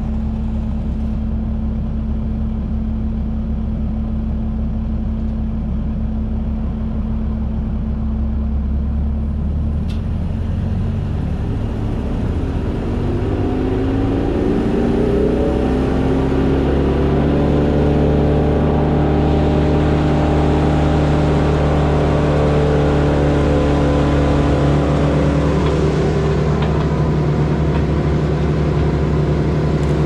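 A machine's engine running steadily at a low pitch. About twelve seconds in it is throttled up, its pitch rising over a few seconds, and it then holds there, running higher and a little louder.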